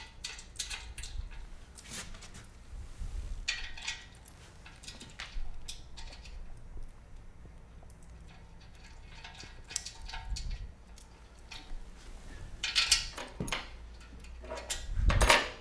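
Metal hardware clinking and clicking in scattered bursts as bolts, washers and nuts are fitted by hand to a powder-coated metal press frame, with a louder metal clank near the end.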